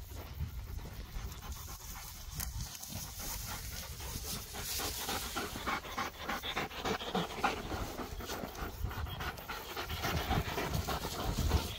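Greyhound-type sighthounds panting rapidly close by, tongues out, the panting getting stronger about four seconds in.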